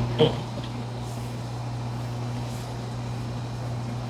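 Steady low hum with a faint hiss of room background noise, and one short soft sound about a quarter second in.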